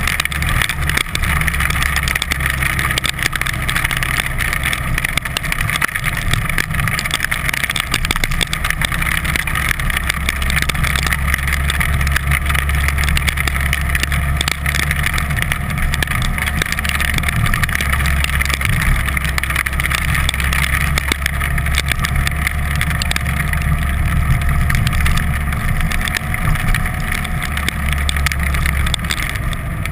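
Vehicle driving on a wet road: a steady low engine drone with a continuous hiss of tyres and wind.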